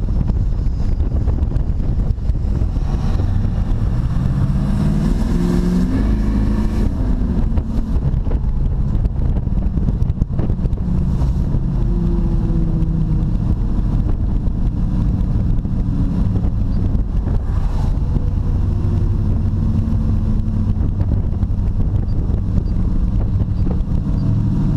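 Chevrolet Camaro engine and road noise heard from inside the cabin while driving. The engine climbs in pitch under acceleration for a few seconds, then drops sharply about seven seconds in at a gear change, and settles back to a steadier cruise.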